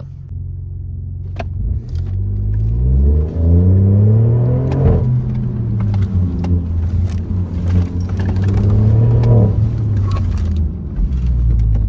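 BMW F20's B38 three-cylinder turbo engine accelerating hard. The revs climb, drop suddenly at a shift about five seconds in, run high again and fall away near the end.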